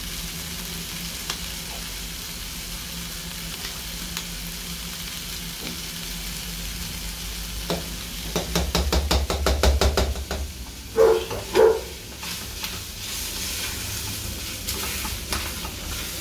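Steady sizzle of carne seca frying in a pan. About eight seconds in, a spoon stirring thick rice and beans in a stainless steel pot scrapes and clicks rapidly against the pot for a couple of seconds, followed by two loud metal knocks with a ringing tone.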